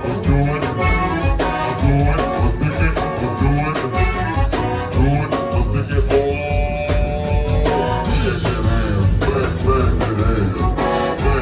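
Live zydeco band playing an upbeat dance tune: accordion, rubboard, electric bass guitar and drum kit.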